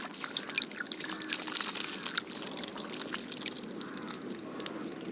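Water being poured by hand onto the soil around a freshly planted sapling, with small splashes and drips.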